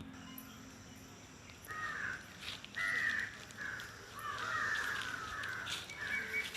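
Crow cawing: a run of harsh, raspy caws about a second apart, beginning a couple of seconds in.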